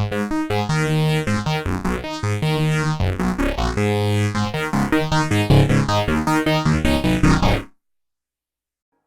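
Sequential Prophet-6 analog synthesizer playing a sequenced FM patch, with oscillator 2 modulating at audio rate through the Poly Mod section, heard dry. A quick run of notes, each opening bright and then closing down, stops near the end.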